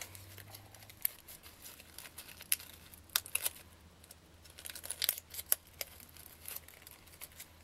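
Faint rustling, crinkling and scattered small clicks of silk leaves being pulled apart and handled along with a plastic-bottle flower, over a faint steady low hum.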